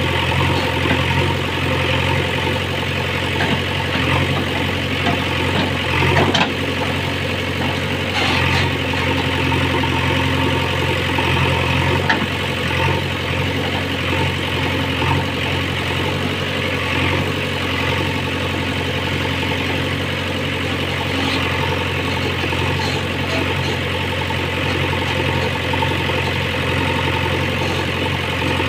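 JCB 3DX backhoe loader's diesel engine running steadily, with a few brief clicks or knocks over it.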